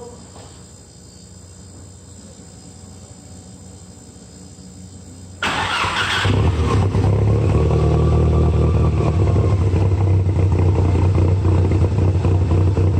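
Audi 1.8T turbo four-cylinder in a Porsche 944 cranking and catching about five seconds in, then idling loudly and steadily through a straight-pipe exhaust on a cold start.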